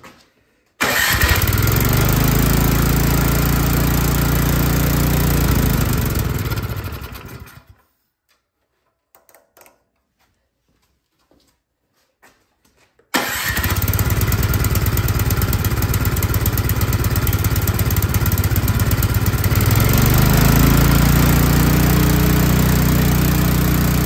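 Troy-Bilt Storm 2665 snowblower's four-stroke engine catching right away and running at full throttle, shut off after about five seconds and winding down, then started again about thirteen seconds in and running at full throttle, revs rising a little near the end. It races because the throttle linkage on top of the freshly reassembled carburetor was left unhooked.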